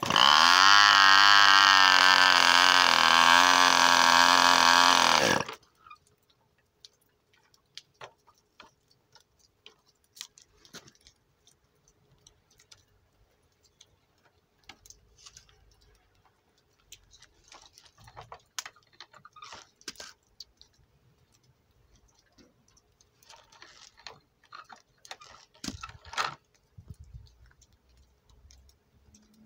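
Handheld electric starter spinning a Cox .15 Medallion model airplane engine for about five seconds: a loud whine that rises in pitch, holds steady, then cuts off sharply, and the engine does not keep running. Scattered small clicks and handling noises follow.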